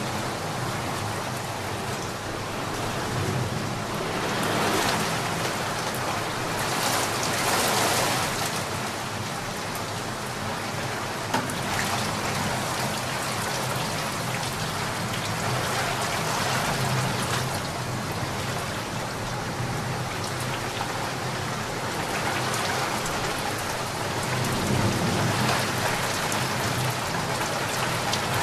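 Steady rain falling on a garden pond and its plants, growing heavier and lighter in slow swells, with one sharp tap about eleven seconds in.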